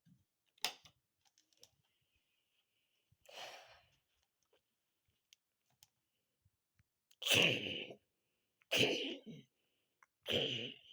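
A person's voice giving three short, forceful breathy bursts about a second and a half apart, after a single sharp click and a faint breath earlier on.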